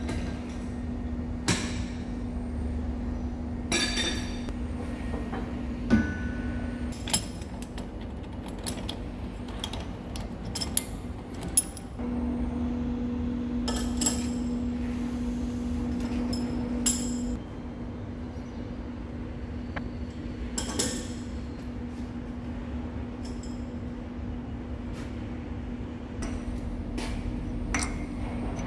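Metal clinks and knocks of hand tools and steel fittings on a lathe's chuck and tool post during setup, over a steady low hum that is louder for a few seconds midway.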